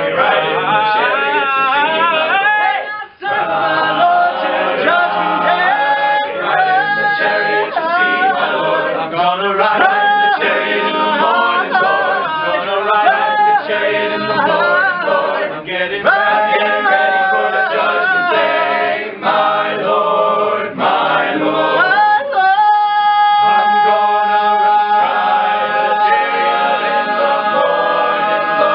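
All-male a cappella group singing in close harmony, with a brief break about three seconds in. Near the end they settle onto one long held chord.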